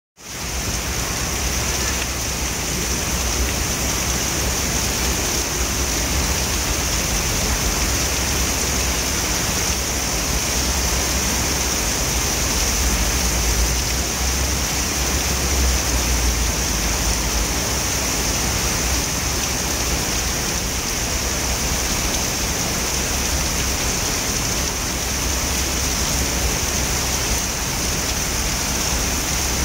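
Heavy rain pouring down steadily onto wet pavement, a constant hiss.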